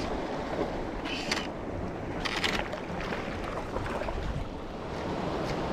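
Wind on the microphone and sea water washing around a small fishing boat, an even rumbling hiss with two brief louder hisses about one and two and a half seconds in.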